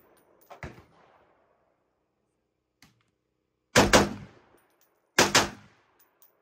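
Gunshots from a .308 rifle: a faint pop about half a second in, then two loud shots about a second and a half apart in the second half, each a quick double crack.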